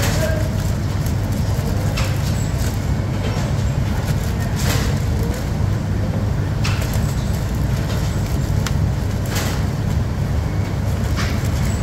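Steady low machine rumble, with scattered short crinkles and taps as round cookies are slid into a clear plastic bag.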